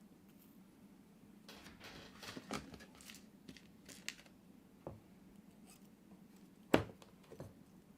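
Snipping and rustling of a small hand cutting tool for about three seconds, then a few sharp clicks, the loudest one near the end.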